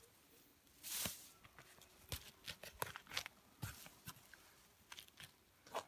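Hunting knife cutting through the connective tissue under a red deer's shoulder blade to free the front shoulder: a faint string of short slicing and scraping sounds, the longest about a second in.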